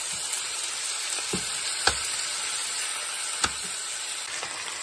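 Marinated chicken leg pieces sizzling as they fry in a pan, a steady hiss while the pieces are turned, with two sharp clicks, one about two seconds in and one about three and a half seconds in.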